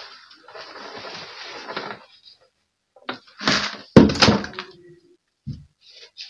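Loose potting soil pouring out of a plastic bucket into a plant bag, a rustling hiss for about two seconds. Then a few loud knocks and a low thump as the plastic bucket is set down and handled.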